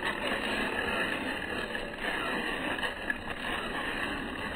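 Electric motor and gear drive of a 1/16-scale RC rock bouncer running steadily as it drives over tree roots and grass, a continuous whirring with no clear breaks.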